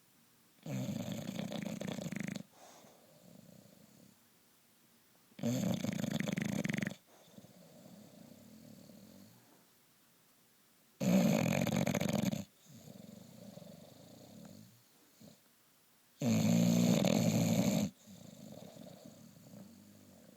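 Bulldog snoring loudly: four long snores, each about a second and a half, coming roughly every five seconds, with softer breathing between them.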